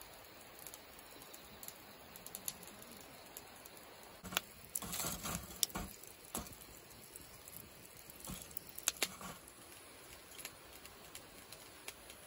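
Faint steady outdoor hush with scattered light clicks and knocks, busiest about four to six seconds in and again briefly around nine seconds: tongs shifting lumps of charcoal in a charcoal grill.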